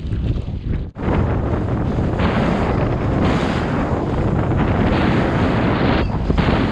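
Wind buffeting the microphone, with sea water washing along an open boat's hull; the noise breaks off briefly about a second in and then runs steadily.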